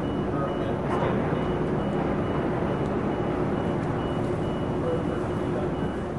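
Steady low mechanical hum of outdoor background noise, with a faint high beep repeating about twice a second. A single sharp knock sounds about a second in.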